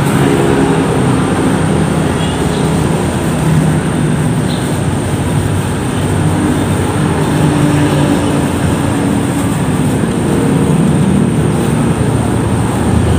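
Steady low rumble of a running engine, like a vehicle idling nearby. Faint crinkles of a plastic bag of rice being handled sound now and then over it.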